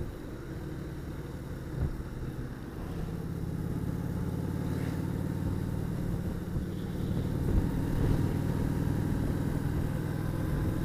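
Motorcycle engine running at road speed, heard from the bike over road and wind noise; the engine note grows louder about three seconds in as the bike pulls along.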